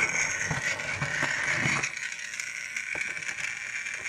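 Plarail Rosie battery-powered toy engine running along plastic track: its small electric motor and gears give a steady high whine, with light clicks and rattles from the wheels on the track.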